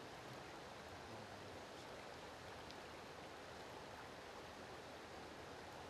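Faint, steady rush of a flowing stream.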